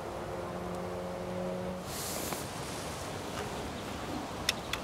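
Wind buffeting the microphone in a gale. There is a faint steady hum for the first couple of seconds, a short hiss about two seconds in, and two sharp clicks near the end.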